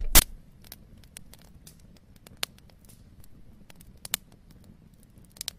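Wood bonfire crackling, with irregular sharp pops over a low rumble of flames; the loudest pop comes right at the start.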